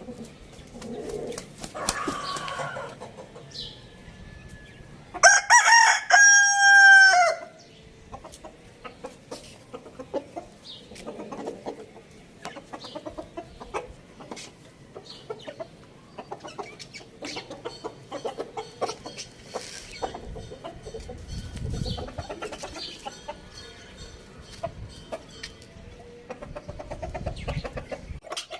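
A rooster crows once, loud, for about two seconds starting about five seconds in. Before and after it, chickens cluck softly, with scattered short clicks and scratches.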